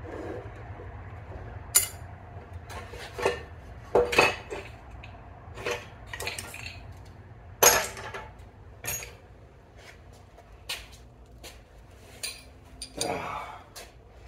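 Irregular sharp metal clinks and knocks of hand tools, a steel drift and a hammer, against a Simplicity 725 bevel gearbox housing as its shaft is worked out. There is a longer scrape near the end.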